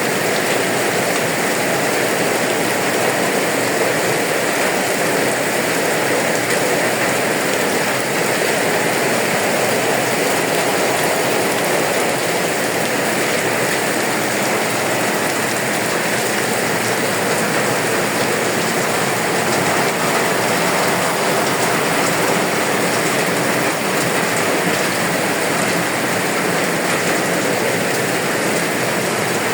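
Rain falling steadily, an even unbroken patter with no let-up.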